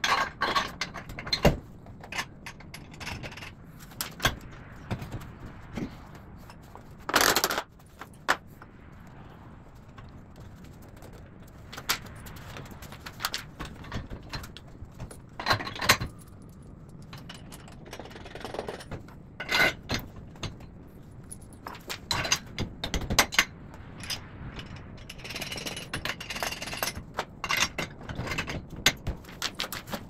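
Steel rack brackets clanking, rattling and scraping in irregular knocks as they are handled and fitted onto a wooden post, with a louder half-second burst about seven seconds in.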